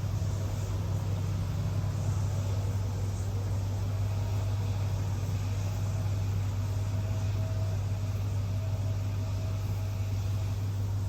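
School bus engine running with a steady low drone and no change in speed.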